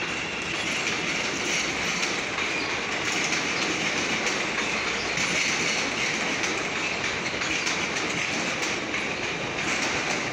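CTA 'L' rapid-transit train rolling slowly through yard switches, its wheels clattering over the rail joints with a high screech from the wheels running steadily underneath.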